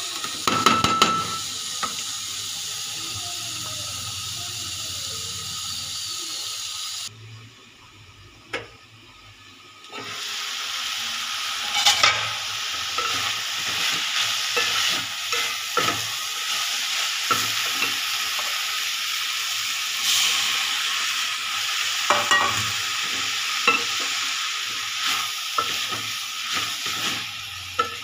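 Chopped flat beans frying in oil in an aluminium pot, with a steady sizzle, while a wooden spatula stirs and scrapes against the pot in frequent short knocks. The sizzle drops away for about three seconds, some seven seconds in, then resumes.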